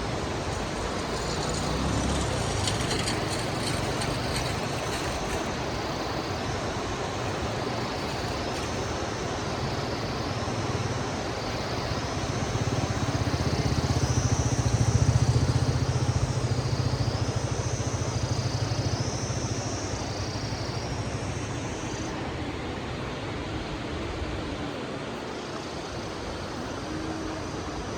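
Steady hiss of falling rain. A low motor hum swells to its loudest about halfway through, then fades away.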